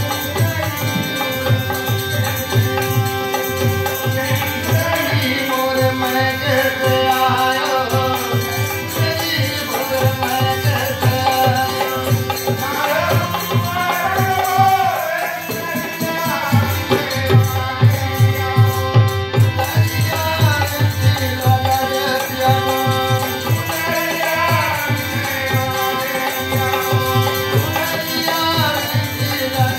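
Live bhajan music: a man singing a devotional melody over the held chords of a harmonium, with hand drums keeping a steady, busy rhythm.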